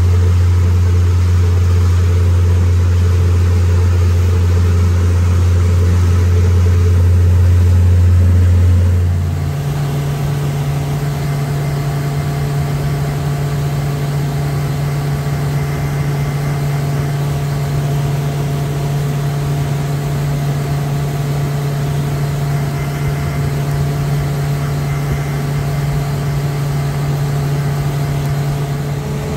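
Motor cruiser's engine running steadily under way, a loud low drone. About nine seconds in, the drone jumps to a higher steady pitch and gets a little quieter.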